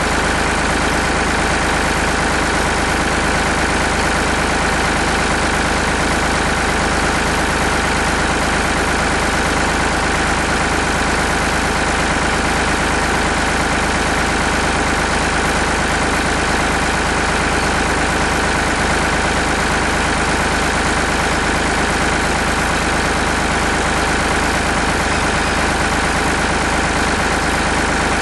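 Farm tractor engine running steadily near the microphone, with no change in speed.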